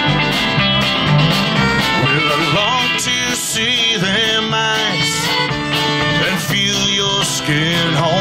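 Live country-bluegrass band playing: strummed acoustic guitar, fiddle, bass guitar and congas, with a man singing over the steady beat.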